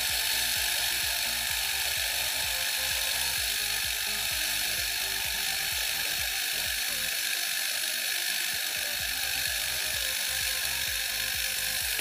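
Refrigerator hermetic compressor running steadily, pumping the old oil out through its hose to flush itself clean.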